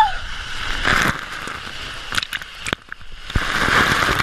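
Water rushing down a water slide as a rider slides through it, close to a GoPro, with many sharp knocks and crackles of splashing water, and a louder splash into the pool near the end. A woman's brief rising shout at the very start.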